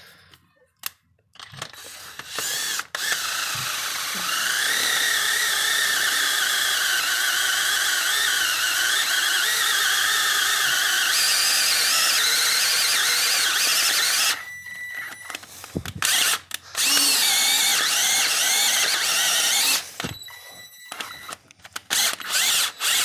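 Cordless drill boring out a head-bolt hole in the engine block for a Time-Sert thread insert, running under load with a wavering whine. It runs in one long spell, then a shorter one after a brief stop, then several short bursts near the end. The drill bit is worn and cuts slowly.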